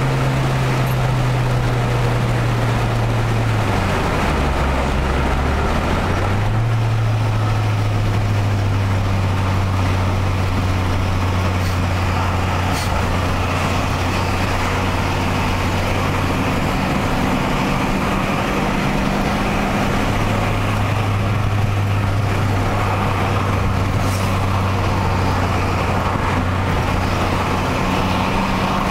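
Car engine and tyre noise heard from inside the cabin while driving at steady speed on an open road. The engine hum drops lower about four seconds in and comes back up about two seconds later, then holds steady.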